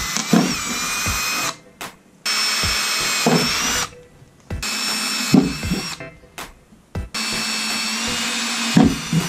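Cordless drill with a small bit drilling pilot holes through a car's trunk lid: a steady whine that runs in four bursts, stopping and starting again, with a few low knocks.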